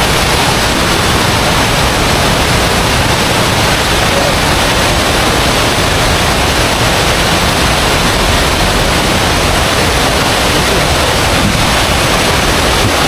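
Waterfall rushing: a loud, steady roar of cascading water that does not change.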